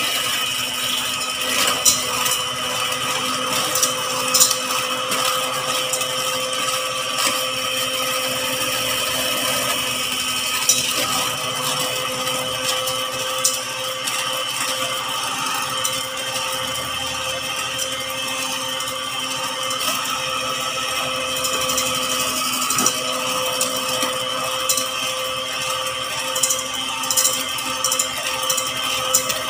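Electric hand mixer running steadily at one speed, its wire beaters whipping egg whites in a stainless steel bowl, with scattered light clicks throughout.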